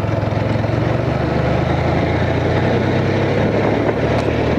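Honda Crosstourer's V4 engine running steadily under way, heard from the rider's seat along with road and wind noise.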